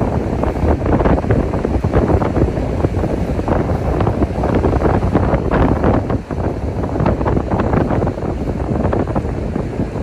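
Wind buffeting the microphone: a loud, rough, continuous rumble with irregular gusts.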